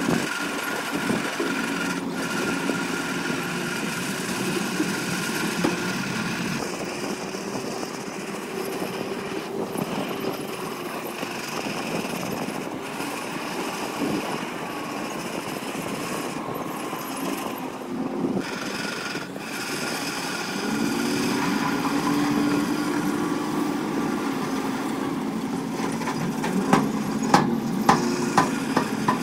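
Heavy earthmoving machinery's diesel engine running steadily, its pitch shifting as it works, with a few sharp knocks near the end.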